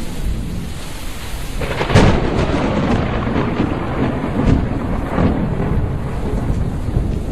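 Thunderstorm sound effect: a steady rain-like hiss, a sharp thunderclap about two seconds in, then rolling thunder with a couple of smaller cracks.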